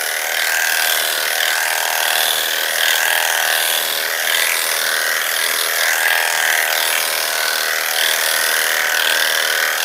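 Electric dog-grooming clippers running steadily, the blade shaving through a standard poodle's curly coat. This is the rough pre-clip shavedown done before bathing.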